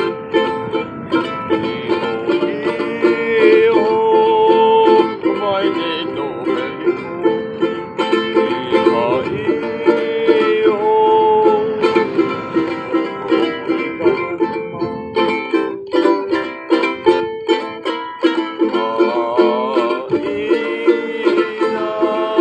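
A man singing with vibrato while strumming a ukulele in a steady rhythm.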